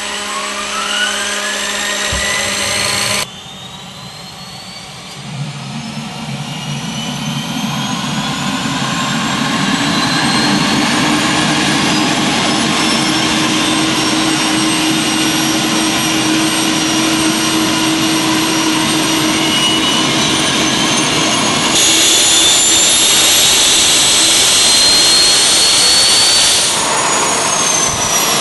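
Homemade turbojet built from a Cummins VT-50 diesel turbocharger spinning up, with several turbine whines rising steadily in pitch over a rushing noise that builds and grows louder. The sound drops away abruptly about three seconds in, and it changes sharply again near the end.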